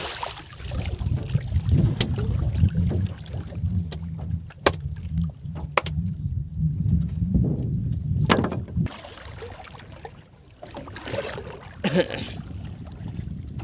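Water sloshing beside a small wooden boat, with a low rumble of wind on the microphone that eases off about nine seconds in. A few sharp knocks stand out, the loudest a little past eight seconds and near the end.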